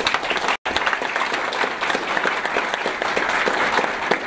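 Audience applauding: many hands clapping in a steady, dense stream, broken by a momentary dropout about half a second in.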